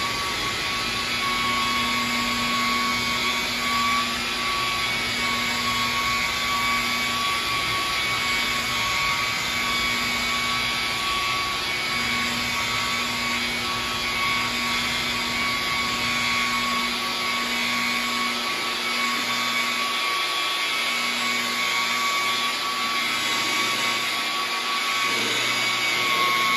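Electric rotary polisher with a white foam waffle pad running at a slow, steady speed of about 1800 RPM, working cutting compound into a painted car door. It gives a steady motor whine that holds its pitch.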